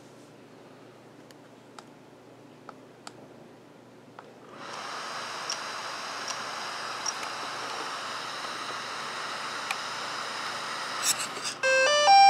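DJI Mavic 2 drone powering up: its internal cooling fan starts about four and a half seconds in with a steady whir. Near the end its motors play the start-up chime, a quick run of short beeps at stepped pitches. Before the fan there are a few faint clicks.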